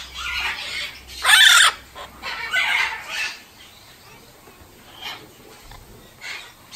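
Large macaws squawking: a run of harsh, raspy calls, the loudest about a second and a half in, followed after a pause by a few shorter, fainter calls.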